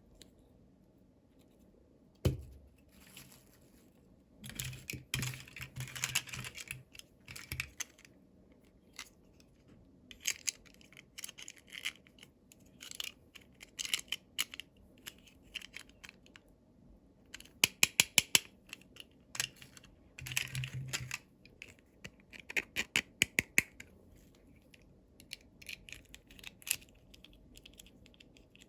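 Toy packaging being handled and opened by hand: irregular bursts of plastic and paper crinkling and tearing, with sharp clicks and taps, including quick runs of clicks about halfway through and again a little later.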